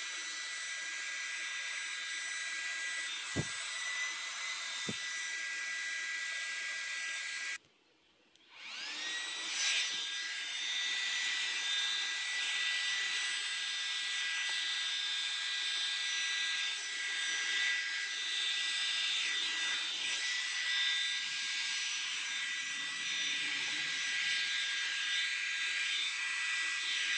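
Small BLDC turbo jet fan in a PVC-pipe housing running at high speed: a steady high-pitched whine over a rush of air. About seven and a half seconds in the sound drops out for about a second, then the fan spins back up, its whine rising in pitch to the same steady level.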